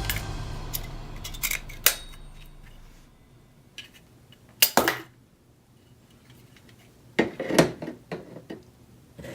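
Music fading out, then scattered clicks and clatter of hard objects being handled, with the loudest knocks near the middle and a cluster near the end.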